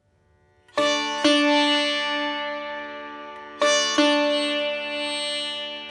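Background music on a plucked string instrument. After a moment of quiet, notes are struck in two pairs, about a second in and again near four seconds, each left to ring and fade slowly.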